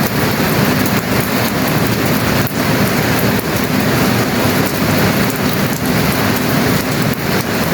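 Steady rain falling, a dense, even hiss that holds throughout.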